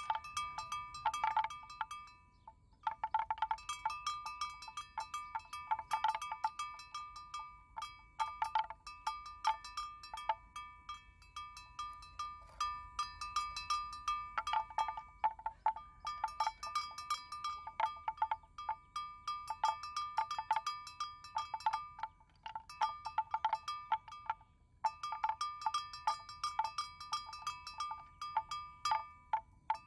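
A metal bell on a water buffalo's neck clanking irregularly as the animal moves, in quick runs of strikes with a few short pauses, the first about two seconds in.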